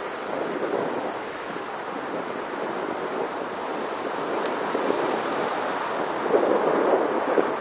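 Wind rushing over the microphone of a camera riding on a moving bicycle, a steady noisy rush that swells a little near the end.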